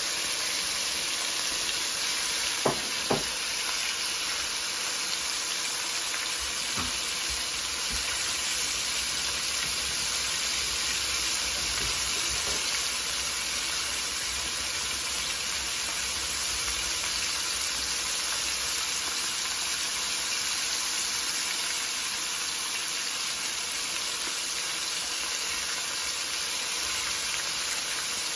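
Flour-coated chicken pieces frying in hot oil, a steady sizzle, with two brief knocks about three seconds in.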